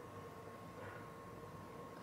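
Quiet room tone with a faint steady hum; no distinct sound events.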